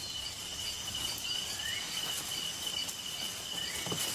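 Rainforest insect chorus: one insect trilling on a steady high pitch without a break, with faint repeated chirps above it and two short rising calls, about a second in and near the end.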